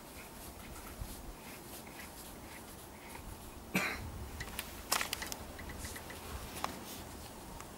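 Quiet handling noise of tile-cutting tools and tile: scattered light clicks and taps, with a short cough about four seconds in and a quick run of small ticks just after five seconds.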